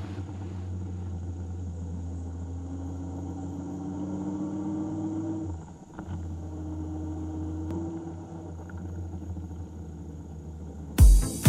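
Motorcycle engine running under way, its pitch climbing slowly as it pulls, with a short dip about six seconds in before it climbs again. Music with a heavy thumping beat cuts in near the end.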